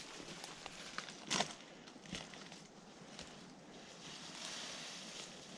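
Footsteps and gear rustling of hikers picking their way down steep, rough ground: a few scattered crunches and knocks, the loudest about a second and a half in, over a faint steady hiss.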